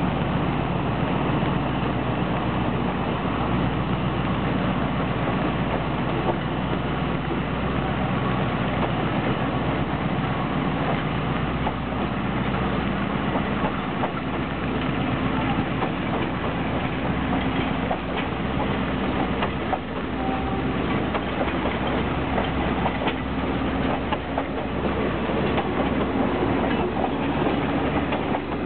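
A diesel-hauled passenger train pulling slowly away: coaches rolling past with wheels clicking over the rail joints, the clicks more frequent in the second half, over a steady engine drone.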